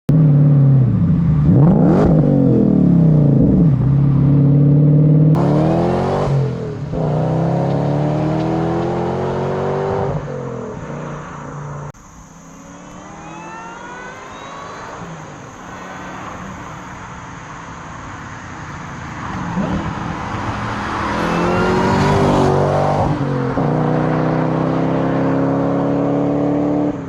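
Lexus GS400's supercharged 1UZ-FE V8 engine and exhaust, fitted with large Dodge Ram exhaust tips, accelerating hard through the gears. The engine note climbs, then drops at each shift several times, with a quieter stretch in the middle before it climbs again.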